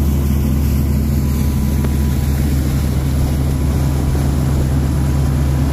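A fishing boat's engine runs steadily at cruising speed with a constant low drone, under the loud rush of the wake and spray along the hull.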